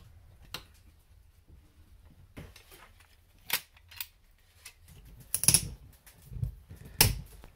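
Scattered clicks and knocks of a DeWalt pneumatic nail gun being handled and taken apart on a wooden workbench. A louder clatter comes about five and a half seconds in, and a sharp knock near the end.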